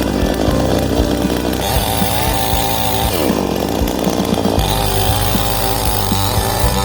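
Ibell petrol chainsaw running at high revs. Its pitch sags about three seconds in and picks up again a second and a half later.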